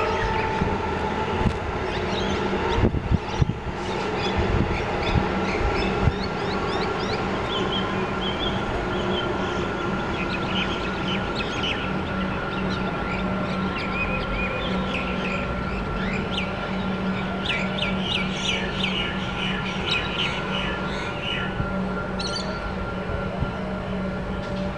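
Small birds chirping in quick, repeated short calls, growing busier in the second half, over a steady background hum. A few knocks in the first few seconds.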